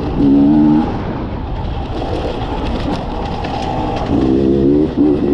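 Beta RR 300 two-stroke enduro motorcycle engine revving hard under acceleration, easing to a lower, steadier note for a few seconds, then revving up again about four seconds in, over wind rushing past the helmet camera.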